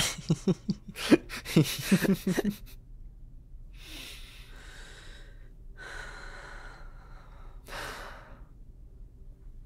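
A person's voice makes a short run of untranscribed vocal sounds at the start. Then come three long, audible breaths or sighs, about four, six and eight seconds in.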